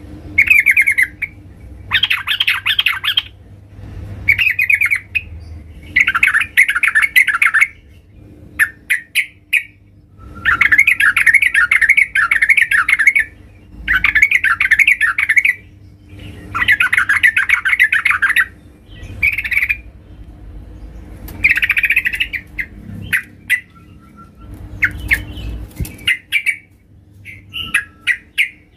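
Female yellow-vented bulbul calling to a male: repeated bursts of rapid chattering notes, each from under a second to about three seconds long, with short pauses between them.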